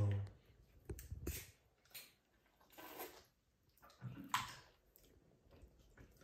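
Boiled crab legs being broken open and eaten by hand: several sharp snaps of cracking shell, with wet squishing and sucking as the meat is pulled out and eaten. A brief low hum of a voice comes right at the start.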